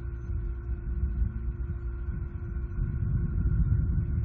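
Steady low rumble with a constant faint hum from the nest camera's microphone. The rumble grows a little louder about three seconds in, and no distinct eagle sounds stand out.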